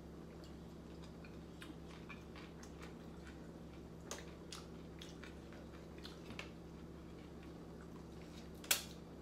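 Eating khao poon noodle soup: quiet chewing with scattered small clicks and smacks, and one louder sharp click near the end.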